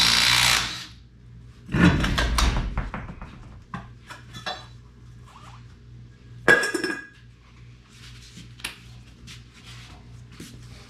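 Metal clanks and clinks of a lug wrench, lug nuts and a steel wheel being handled while a truck wheel is taken off. It opens with a loud rushing burst under a second long, with a heavy clunk about two seconds in and another about six and a half seconds in, and light clinks between them.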